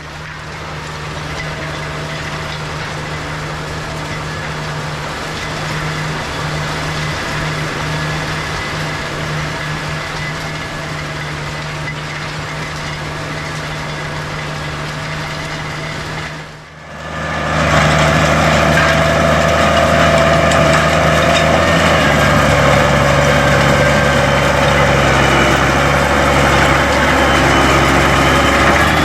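Case IH MX110 tractor engine running steadily as it pulls a Pickett one-step bean windrower through the field. About 17 seconds in the sound cuts to a louder stretch of farm machinery running, with extra steady whining tones over the engine drone.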